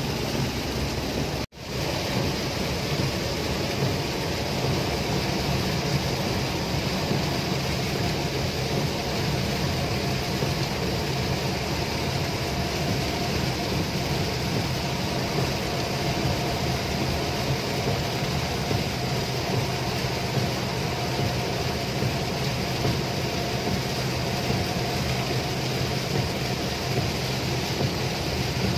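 Heavy rain on a moving car, heard from inside the cabin: a steady rush of rain and road noise over the low hum of the engine. The sound cuts out for an instant about a second and a half in.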